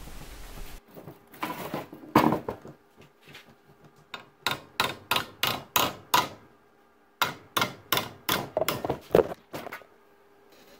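Hammer blows on a curved sheet-steel panel being formed over a wooden dowel held in a bench vise: sharp metallic taps, about two a second, in two runs with a short pause between.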